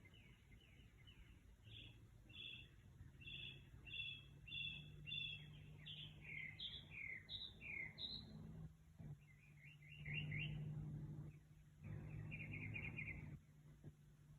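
A bird singing a varied night song: phrases of short repeated notes, each phrase different, going from paired chirps to falling slurred notes, a rising note, then quick rapid runs. A low steady hum runs beneath it, swelling with some noise in the second half.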